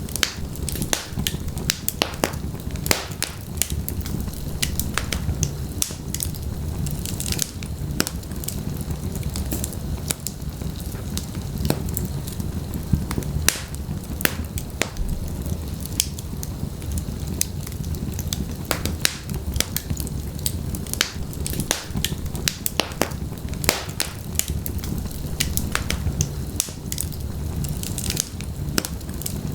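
Wood fire burning in a fireplace, crackling and popping at irregular moments over a steady low rumble of the flames.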